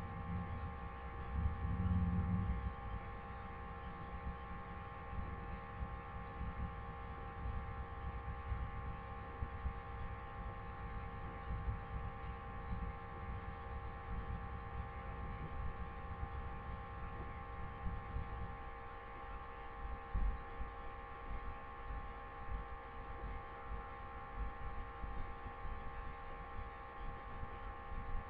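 Low, uneven rumble of road noise inside a moving vehicle, easing a little about two-thirds of the way through, under a steady electrical hum of several fixed tones.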